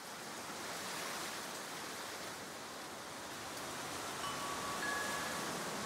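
Intro of a song's backing track: a soft, airy noise swell fading in and slowly growing louder, with a few faint chime-like tones entering about three and a half seconds in.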